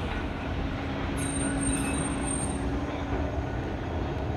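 Blackpool double-deck tram rolling slowly past on street track: a low rumble with a steady hum that fades near the end. A faint high wheel squeal comes in about a second in and lasts a second or so.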